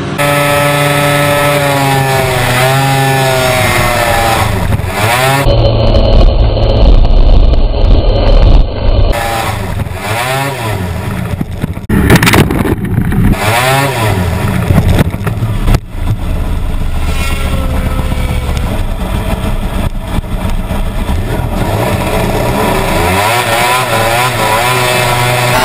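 Racing hovercraft engine heard close up from on board, its pitch rising and falling again and again as it is revved up and down. For a few seconds about a third of the way in, wind buffets the microphone.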